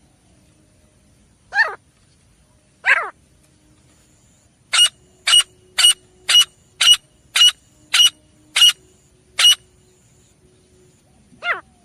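Grey francolin calling: two short downward-sliding calls, then a run of about nine sharp, loud notes at roughly two a second, and another sliding call near the end.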